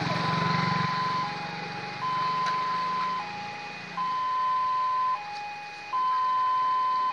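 Railway level-crossing warning alarm sounding a steady two-tone cycle, a higher tone alternating with a slightly lower one about every two seconds, signalling that a train is approaching and the barrier is down. A low engine rumble sits under the first few seconds.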